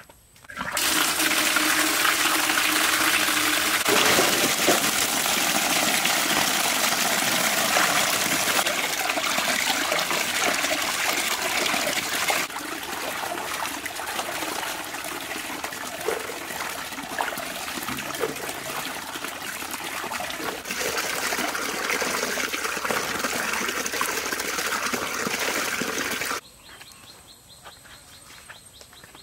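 Water gushing from a tap into a metal basin, with splashing from hands washing fruit in it; the rushing noise shifts in level a few times and cuts off suddenly near the end.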